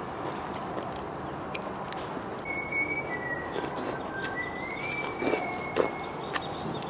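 Chewing and slurping of stir-fried leafy greens eaten with chopsticks: soft wet smacks and clicks, a few louder ones in the last couple of seconds. A thin whistle-like tone, stepping and gliding slightly in pitch, sounds for about four seconds in the middle.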